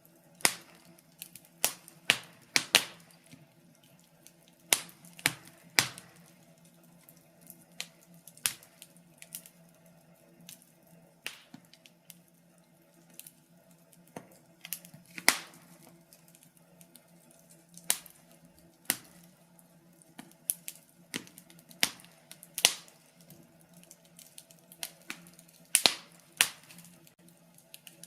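Wood fire crackling: irregular sharp pops and snaps, a few much louder than the rest, over a faint steady low hum.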